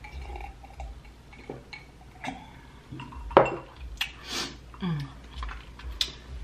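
Close-up sipping from a wine glass, then the glass clinking and knocking as it is handled and set down on the wooden serving board, the loudest knock about three and a half seconds in.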